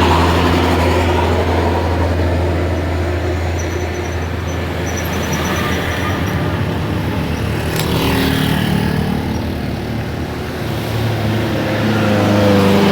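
Heavy vehicle engines and roadside traffic passing, a low steady engine hum with the note shifting as vehicles go by. There is a brief sharp click about eight seconds in, and the engine sound swells again near the end.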